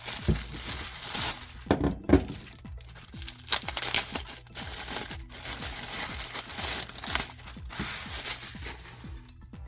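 Plastic packaging crinkling and irregular clicks and knocks of hard plastic tool parts being handled, as 18V lithium-ion battery packs and tools are unpacked.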